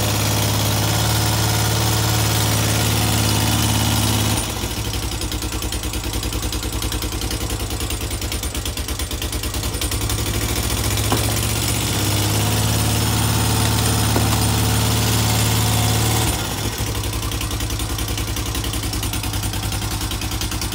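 2005 Honda Foreman 500 ATV's single-cylinder engine running just after being brought back to life. It runs smoothly, turns rougher and pulsing about four seconds in, smooths out again around twelve seconds, and goes back to the rougher pulsing run near sixteen seconds.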